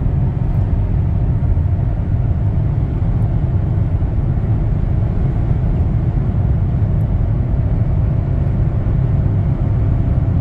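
Steady low rumble of road and wind noise inside a 2023 Toyota Camry XSE's cabin at highway speed, around 90 mph, on a windy day.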